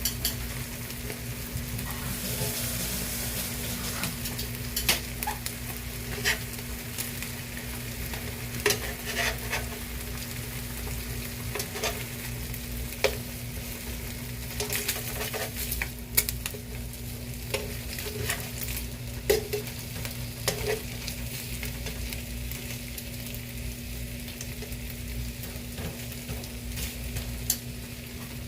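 Turkey bacon sizzling in a frying pan, with scattered sharp clicks and scrapes of a utensil on the pan as the strips are turned. The clicks thin out over the last several seconds while the sizzle goes on.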